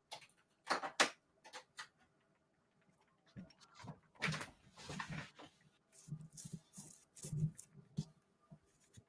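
Faint, irregular clicks and knocks, two sharper ones about a second in, then softer knocks and low rustling, like someone working at a desk and keyboard.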